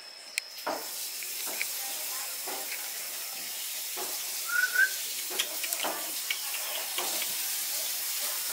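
Food sizzling in a hot frying pan, a steady hiss that comes in under a second in, with scattered small clicks and knocks. A brief high chirp sounds about halfway.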